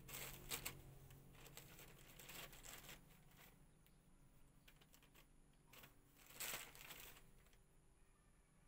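Plastic shopping bag rustling and crinkling in a few short bursts as a kitten paws at it.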